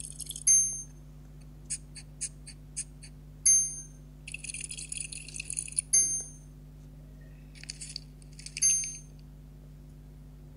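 Slime being squeezed and stretched by hand, making wet crackling and clicking with a few sharp pops. There is a row of quick clicks about two seconds in, and loud pops at roughly half a second, three and a half, six and eight and a half seconds.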